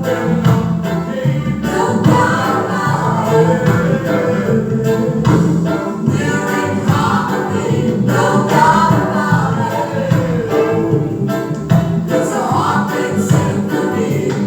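A song with several voices singing together over a steady beat, with tambourine-like shaking percussion.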